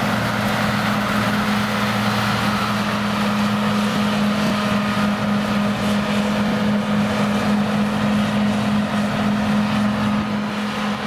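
A steady motor drone: a constant low hum over an even rushing noise, unchanging throughout and easing slightly near the end.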